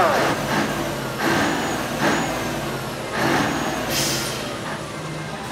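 Heavy trucks: a steady low engine hum with four or five short hissing surges of air, typical of truck air brakes releasing.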